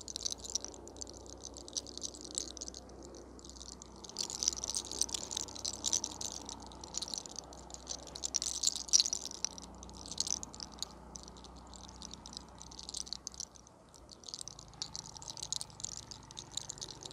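Locks of hair being rolled and tugged between fingers close to the microphone in hair cracking: repeated spells of crisp crackling and rustling, with short pauses between them and the loudest spell about halfway through.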